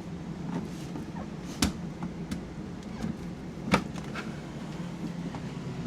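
Things being handled in and around an RV refrigerator: two sharp knocks about two seconds apart and a few lighter taps, over a low steady hum.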